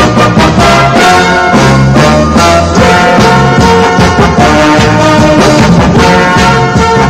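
Music with brass horns over a steady beat.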